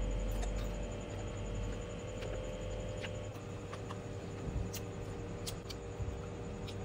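Close-up eating sounds: slow chewing of crisp raw sour fruit, with scattered short clicks and crunches over a steady low hum.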